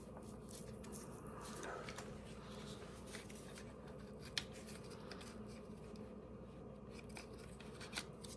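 Faint handling of small pieces of cardboard, with light rustling and a few soft clicks.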